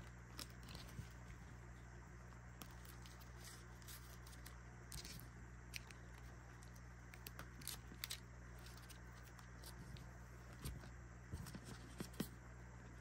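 Faint, scattered clicks and rustles of paper trading cards being handled, slid and gathered into stacks, over a steady low hum.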